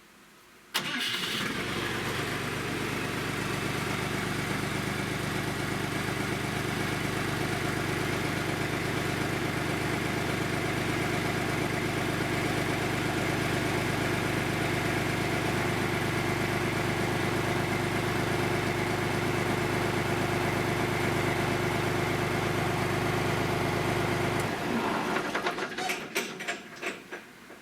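John Deere 350 dozer engine started about a second in and run at a steady idle as a check that the newly fitted alternator charges, then shut off near the end, with a few short knocks and clicks after it stops.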